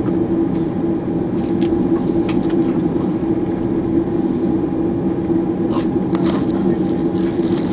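Steady cabin hum inside an Airbus A330-200 airliner with its engines running at a constant low power, a few steady tones over a noisy rush, with a few faint rattles.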